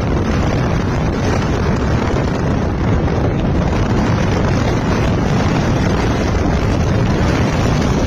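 Steady wind rushing and buffeting over the microphone of a camera carried on a moving motorbike, with road and vehicle noise under it.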